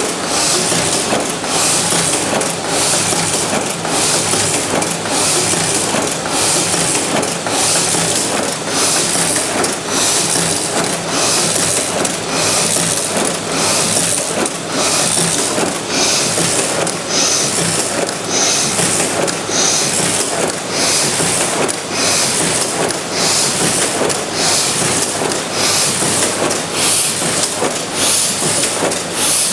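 Hashimoto automatic die-cutting press running continuously, its platen cycling in a steady rhythm of clattering strokes a little over one a second.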